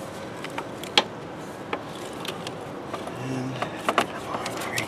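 Several sharp clicks and small plastic knocks as hands work a wiring-harness connector loose from the PCM, the strongest about a second in and again around four seconds in.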